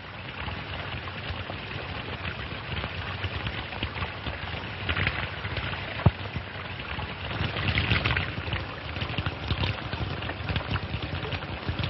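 Water running steadily, a continuous rushing splash with small crackles through it, and one sharp click about six seconds in.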